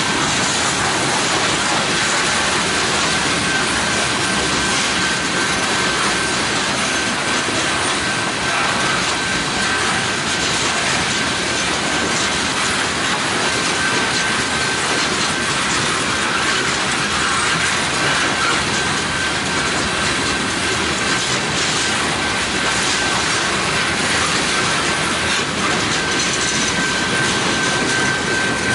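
Covered hopper cars of a freight train rolling steadily past, their steel wheels running loud and continuous on the rails, with a thin steady high-pitched tone over the rolling noise.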